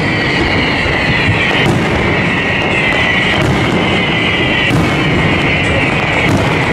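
Fireworks display going off continuously: a dense, unbroken din of bursts and crackle, with a shrill high hiss running through it that slowly falls in pitch and restarts every second or so.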